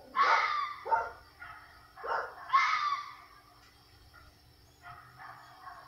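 Red fox yelling: four loud, short calls in two pairs in the first three seconds, each falling slightly in pitch, then fainter calls near the end.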